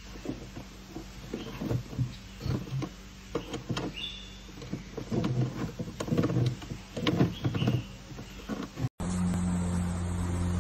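Irregular scuffling, scraping and knocking as two golden retrievers play with a kitten, with a few short high chirps about four seconds in. About nine seconds in it cuts to a steady low hum.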